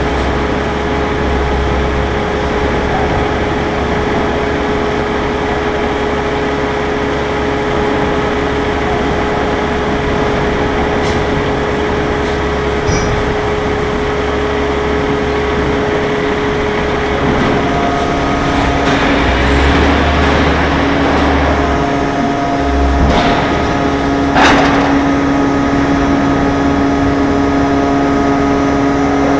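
A 3000-ton hot forming press running as it presses a red-hot steel plate into a dished tank head: a steady machine hum whose tone shifts lower a little past halfway, with a couple of short knocks near the end.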